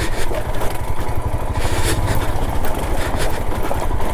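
Royal Enfield Himalayan's single-cylinder engine running steadily as the motorcycle is ridden up a rough off-road track, with a few short knocks over the engine.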